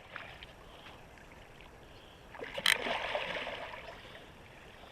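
A sharp knock and a short splash of water a little over halfway through, the splash fading over about a second; otherwise faint background water.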